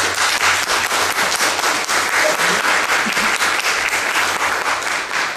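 Audience applauding at the end of a talk: dense, steady clapping that begins suddenly.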